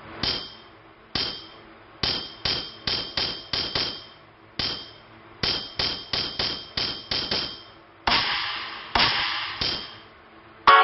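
A run of sharp, hammer-like metallic knocks, each with a short ringing tone, coming in quick irregular runs of several strikes with short gaps between; a few longer, noisier strikes come near the end.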